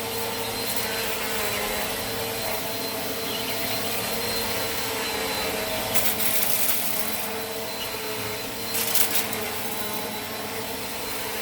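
Eureka AirSpeed Plus NEU110 compact vacuum cleaner running steadily while being pushed over carpet, its motor giving a steady hum with a pitched whine. Two brief louder hissing spells, about six and nine seconds in.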